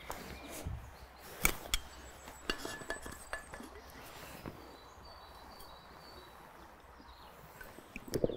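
A drinking bottle being handled and its cap screwed off, giving a series of faint sharp clicks and clinks in the first few seconds over quiet outdoor background.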